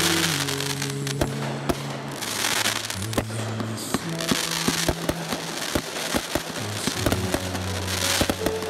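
Aerial fireworks going off: a rapid string of sharp bangs as shells launch and burst, with hissy spells around two and eight seconds in, over a song with held low notes.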